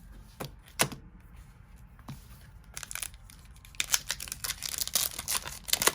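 Foil booster pack wrapper being torn open and crinkled. The crackle grows denser and louder from about three seconds in, after a few soft knocks.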